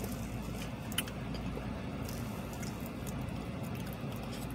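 Plastic spoon scooping cheesecake from a small plastic cup, with a sharp click about a second in, then soft chewing, over a steady low hum.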